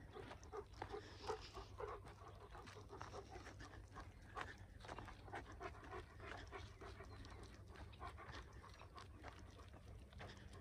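German shepherd dog panting, faint, with soft footsteps on a dry dirt road.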